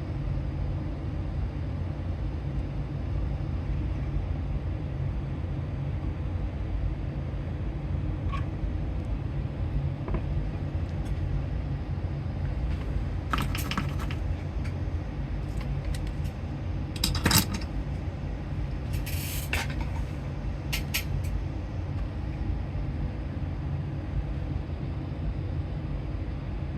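A steady low hum with a few small clicks and taps scattered through it, the sharpest about seventeen seconds in, from small tools and parts being handled on a workbench during hand soldering.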